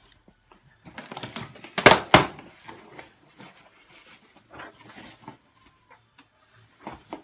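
Handling noises: rustling and light clicks, with two sharp knocks close together about two seconds in.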